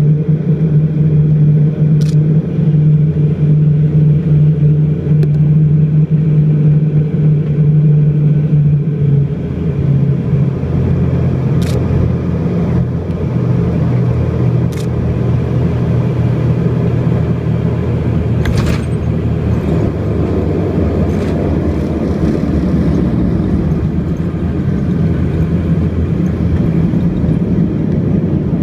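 Cabin noise of an Embraer EMB 120 Brasilia twin-turboprop during landing: a loud, steady propeller and engine hum that shifts in pitch about a third of the way in. It then turns into a rougher rumble as the aircraft rolls along the runway, with a few short knocks.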